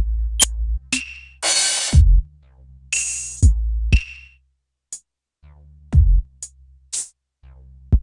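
Electronic drum-machine beat: deep kicks that drop in pitch, long hissy crash-like hits and short sharp ticks over a low bass line. The beat breaks off briefly about halfway through.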